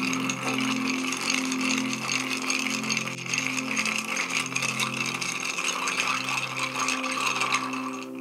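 Ice cubes clinking and rattling against a cut-crystal mixing glass as a bar spoon stirs them steadily. This is the stirring sound used to judge dilution: it deepens as the ice melts and dilutes.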